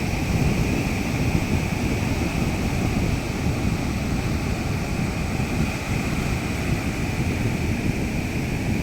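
Wind buffeting the microphone: a steady, rough rumble with a constant high hiss above it.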